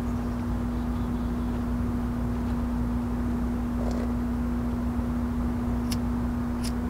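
Steady low rumble with a constant droning hum underneath. Near the end, two sharp clicks less than a second apart as a disposable lighter is flicked to light a cigarette.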